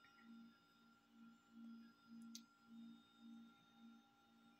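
Near silence: a faint low hum that swells and fades about one and a half times a second, with one faint click about halfway through.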